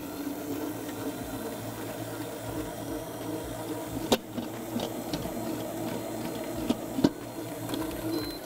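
Stand mixer motor running at speed, its whisk whipping a mascarpone cream filling toward firm peaks. A few sharp knocks cut through about four and seven seconds in.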